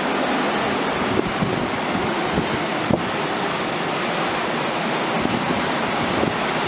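Rough surf stirred up by a hurricane passing offshore, breaking in a steady rushing wash, with wind gusting on the microphone in low buffeting thumps.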